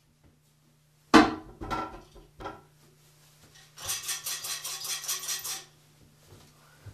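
A sharp knock about a second in, then two lighter clunks, followed by about two seconds of fast rattling, over a faint low steady hum.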